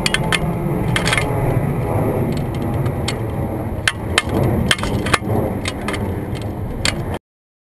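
Wind buffeting the microphone of a pole-mounted action camera, a steady low rumble, with scattered sharp clicks and rattles on top. The sound cuts off abruptly about seven seconds in.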